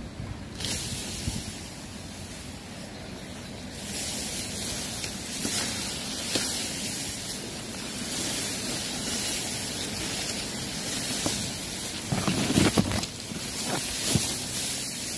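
Tall grass rustling and swishing against the camera and body as someone pushes through dense growth on foot, with a cluster of louder knocks and rubs near the end.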